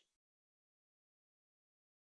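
Silence: the sound track is cut to digital silence.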